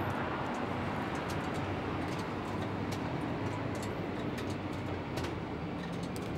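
Steady street background noise: a low hum and hiss of distant traffic, with faint scattered clicks.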